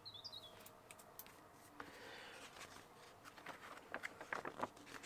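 Faint rustling with scattered light clicks and taps, from model-kit packaging and plastic parts being handled; the clicks come closer together in the last second or so.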